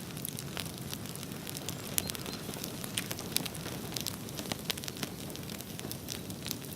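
Wood bonfire burning: a steady low rumble under frequent, irregular sharp pops and crackles of burning wood.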